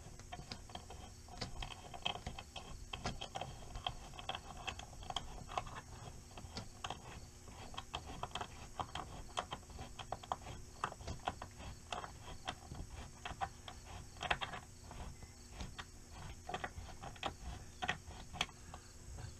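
Small, irregular metal clicks and taps of a C-clamp being handled and its screw turned by hand, clamping canvas to the pop-up camper's aluminium track.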